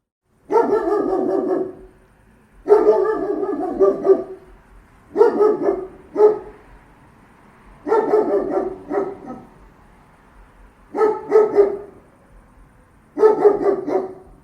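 German shepherd guard dog barking in about six bouts, each a quick run of deep barks, with pauses of a second or two between them.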